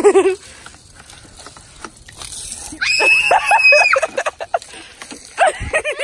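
A person screaming: one high-pitched shriek about a second long, starting about three seconds in, with brief bits of voice at the start and near the end.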